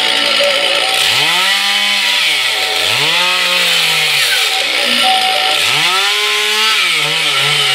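Stihl chainsaw cutting into logs, its engine revving up and dropping back three times, then running lower and steadier near the end.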